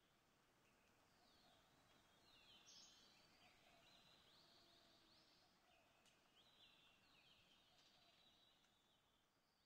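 Near silence with very faint birdsong: short chirps and trills come and go throughout.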